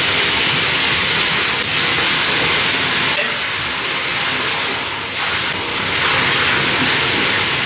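Running water spraying hard: a loud, steady hiss that starts suddenly and cuts off abruptly at the end.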